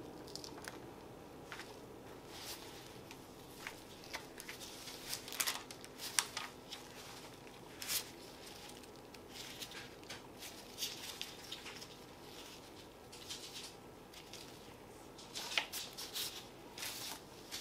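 Faint rustling of plastic gloves and parchment paper with scattered light clicks and taps as a metal cookie cutter is pressed into soft cookie dough and the cut shapes are lifted out. The clicks come in small clusters, busiest about five to six seconds in and again near the end.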